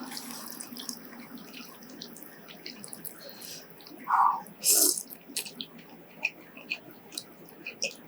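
Wet eating sounds from noodles being slurped and chewed: small mouth clicks and smacks throughout, with two louder wet sounds about four and five seconds in.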